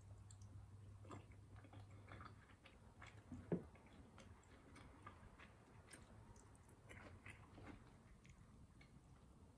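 Light scattered clicks and scrapes of a metal fork and spoon against a plate while eating, with one sharper clink about three and a half seconds in.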